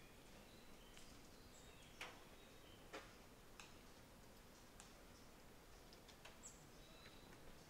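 Quiet forest ambience with a few sharp ticks, the two loudest about two and three seconds in, and brief high chip notes from small birds.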